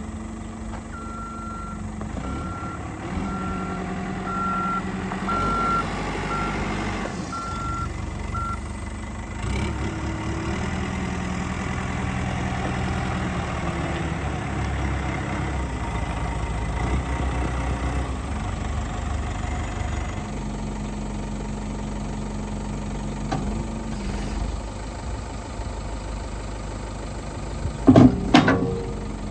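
CAT 420D backhoe's diesel engine running, its speed rising and falling, with the backup alarm beeping about once a second for the first several seconds. A couple of loud knocks near the end.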